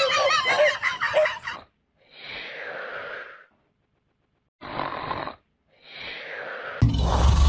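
Laughter dying away, then three hoarse, snore-like breaths, each about a second long with short silences between, before a sudden loud burst of sound near the end.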